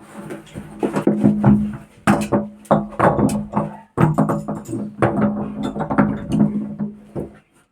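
Background music with a plucked-string instrument and a steady low tone, marked by many short sharp strokes.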